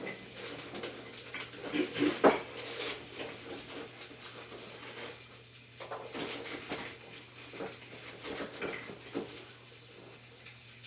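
Kitchen handling sounds: a spoon and pot clinking and scattered light knocks, the loudest knock about two seconds in, over a steady low hum.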